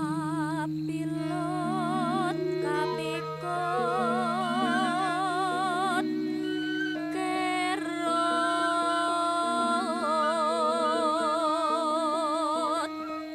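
Background music: a slow, wordless melody with a strong vibrato, stepping between long held notes over a steady low drone.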